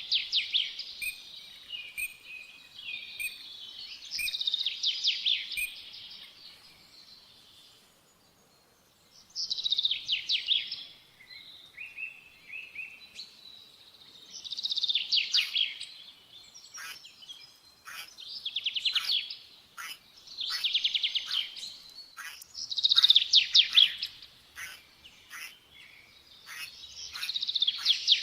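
Small songbird singing: rapid trilled phrases, each one to two seconds long, repeated every few seconds, with a longer pause about a quarter of the way in.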